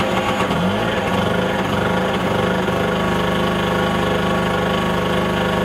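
Small two-stroke portable generator engine running. Its speed wavers unevenly from about half a second in, then settles into a steady run a couple of seconds later.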